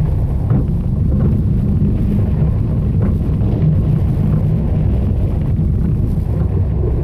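Wind buffeting the microphone and the steady low rumble of a B&M launched wing coaster's train running along its steel track, heard from on board during the ride.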